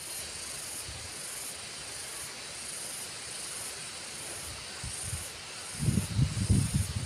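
Steady high-pitched insect chorus, pulsing a little faster than once a second, over a faint hiss. Low irregular rumbling comes in near the end.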